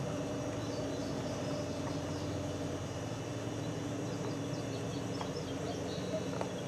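Steady low outdoor hum with faint, scattered high chirping through the middle of the stretch.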